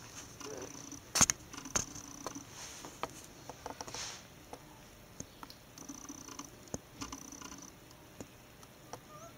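Newborn poodle puppies nursing, with soft suckling and small grunting sounds. Two sharp clicks come about a second in, and a faint steady whine starts and stops a few times.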